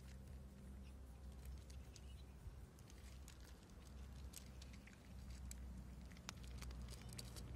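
Cats crunching dry kibble from plates: faint, irregular crunching clicks.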